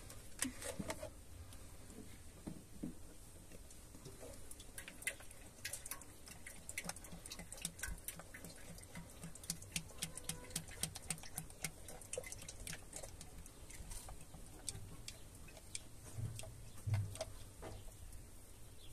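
Transmission-hydraulic oil pouring from a plastic canister into a strainer funnel in an IMT tractor's gearbox filler, with many light irregular clicks and patters, thickest in the middle.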